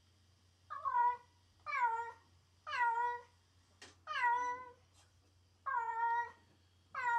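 Domestic cat meowing repeatedly, six calls about a second apart, each sliding down in pitch: lonely, separation-distress meowing.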